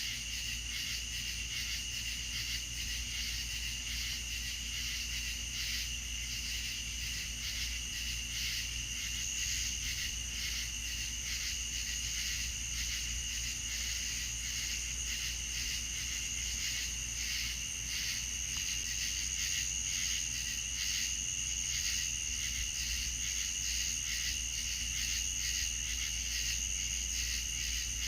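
Night chorus of crickets: a steady high-pitched trilling with a fast, even pulse, over a low steady hum.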